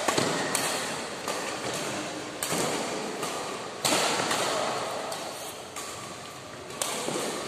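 Badminton rackets striking a shuttlecock in a rally: a series of sharp hits, about six, at uneven gaps of half a second to a second and a half, each echoing in the hall.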